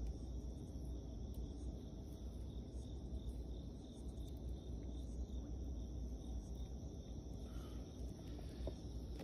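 Crickets chirping steadily in the background over a low, even rumble.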